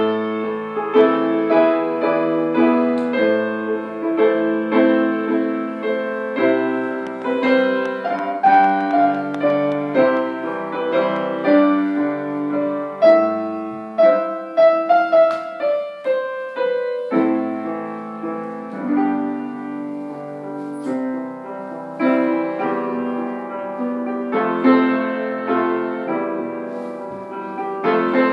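Grand piano playing a continuous tune of chords and melody notes.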